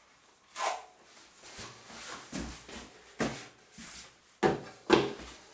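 Handling noise: a string of knocks, thumps and scuffs, with two sharp thumps about four and a half and five seconds in.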